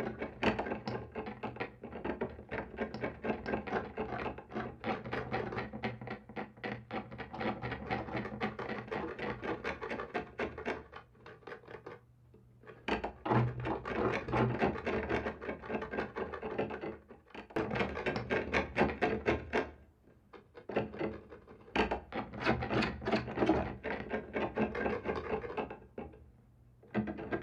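Rapid, rasping scratching on a wall, coming in long bouts of quick strokes with short pauses between them.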